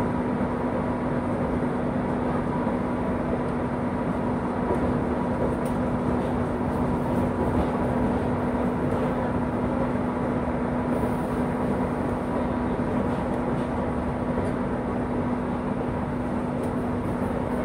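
Steady running noise inside the carriage of a moving Rodalies R1 commuter train, with a constant low hum and a fainter higher tone under the rumble.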